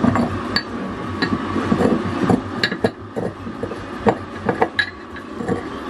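Kitchen clatter: a string of sharp, irregular clinks and knocks as cookware, utensils and bottles are handled, some ringing briefly, over a steady hum.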